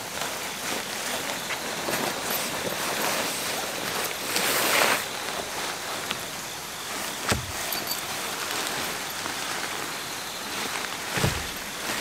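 Nylon fabric of a Kazmi New Trion tent and its plastic wrapping rustling and crinkling as the tent is pulled out and shaken open. There is a louder burst of rustling a little before halfway, and two dull thumps later on.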